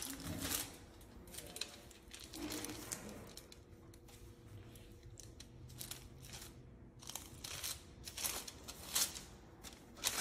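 Aluminium hair-colouring foil crinkling in gloved hands as it is placed and folded under a slice of hair, with a tint brush working product onto it, in short intermittent bursts.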